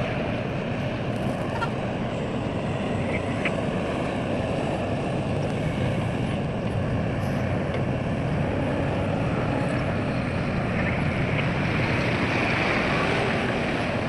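Heavy diesel machinery running steadily, a continuous engine rumble with a few faint clicks and knocks.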